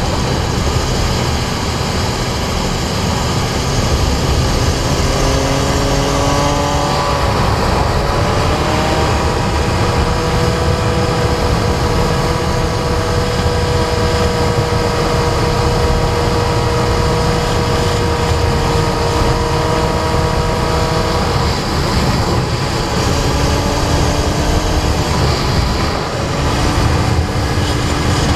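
Sport motorcycle engine running hard at speed under heavy wind rush on the microphone. The engine note climbs, holds steady for a long stretch, then falls away about two-thirds of the way through and climbs again, with a brief dip near the end.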